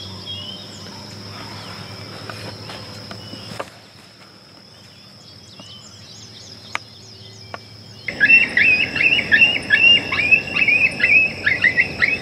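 A group of coyotes yipping and howling together starts suddenly about eight seconds in, a loud chorus of rapid wavering high calls. It answers the hunters' calling. Before it there is a steady high insect drone with a few faint bird chirps.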